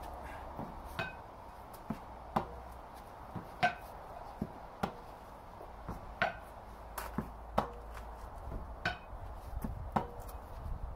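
A ball being hit back and forth with the bottom of a saucepan in a slow rally: sharp knocks about every second and a half, several with a short metallic ring from the pan.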